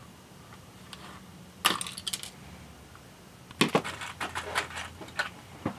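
Small clicks and clinks of a hand wire stripper-crimper and loose crimp terminals being handled: a couple of sharp clicks about two seconds in, then a quick run of clicks from about three and a half to five seconds.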